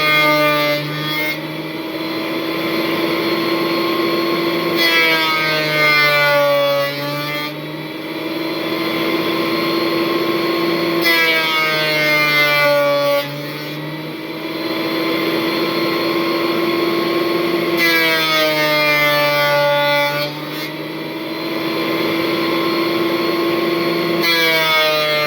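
Thickness planer motor running steadily while a glued-up wood panel is fed through it again and again. About every six seconds the cutterhead bites into the wood: the sound gets harsher and the motor's pitch drops under the load, then recovers as the board clears.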